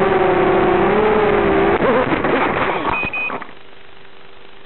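Brushless motors of a ZMR250 racing quadcopter running on a 3S battery, whining steadily with a slightly wavering pitch. About two seconds in the sound breaks into a confused rustling clatter as the quad flies into tree branches. About three and a half seconds in the motors stop, leaving a quieter steady hiss with a faint hum.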